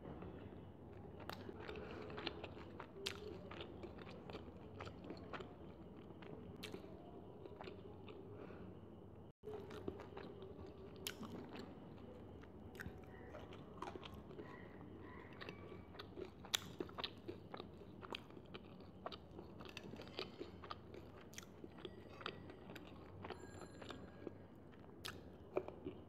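Close-miked chewing and crunching of batter-fried chicken and noodles, with many small sharp mouth clicks and smacks scattered throughout.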